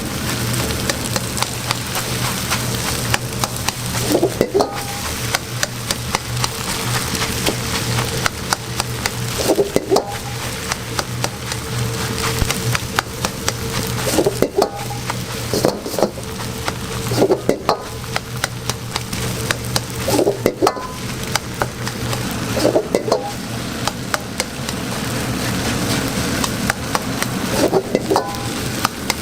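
Fried rice sizzling in a hot pan while metal spatulas stir and toss it, with many quick clacks of metal on metal. A short scrape comes every few seconds. A steady low hum runs underneath.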